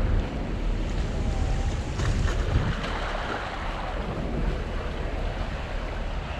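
Wind buffeting the microphone over a steady rush of water and surf at the shore.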